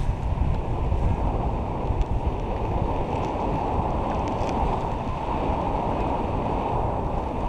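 Wind noise from the airflow of paraglider flight buffeting an action camera's microphone: a steady, unbroken rush, heaviest in the low end.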